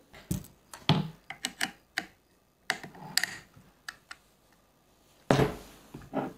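Clicks, taps and knocks from the metal barrelled action of a Gamo Shadow 1000 air rifle being handled on a wooden table during reassembly, with one heavier knock about five seconds in.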